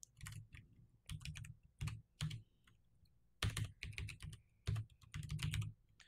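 Computer keyboard typing: several short runs of keystroke clicks with brief pauses between them, as a terminal command is entered.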